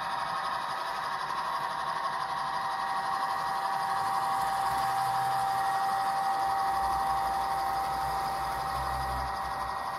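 Model railway grain train rolling past: a steady whirr of wagon wheels on the track with a steady high whine, and a low rumble that comes in about halfway through.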